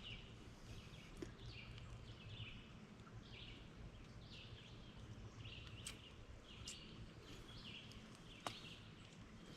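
Faint bird calls in woodland: short notes repeated again and again, under a low steady background, with a few sharp clicks in the second half.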